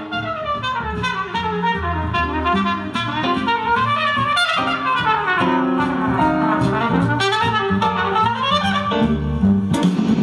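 Instrumental music with a brass lead melody over bass, played loud through a large three-way floor speaker with a 9-inch bass driver, driven by a tiny 3-watt PAM8403 class-D amplifier board.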